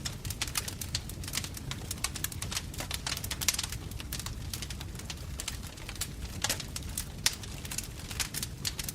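Wood fire in a fireplace crackling, with many small irregular pops and a few sharper ones, about three and a half and seven seconds in, over a steady low rumble.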